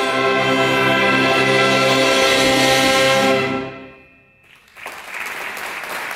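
Concert wind band holding a loud final chord, brass and woodwinds together, which is released about three and a half seconds in. After a brief gap the audience breaks into applause.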